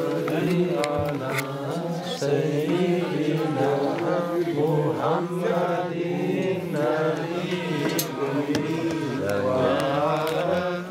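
A crowd of men's voices chanting together, many overlapping and sustained.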